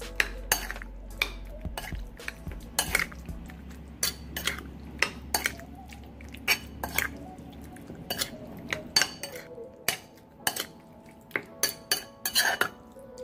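Metal spoon clinking and scraping against a ceramic bowl while stirring seasoned sliced raw beef, in irregular clinks a few times a second.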